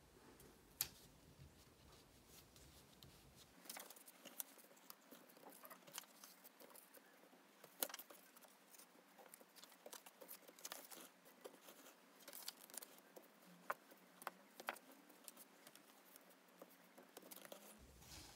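Faint rustling and small taps of paper cards, a photo and masking tape being handled and pressed flat onto a wall by fingers, with a couple of sharper ticks.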